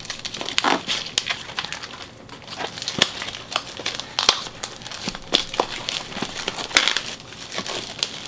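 Plastic shrink-wrap being torn and crumpled off a sealed box of trading cards, with irregular crinkling and crackling throughout.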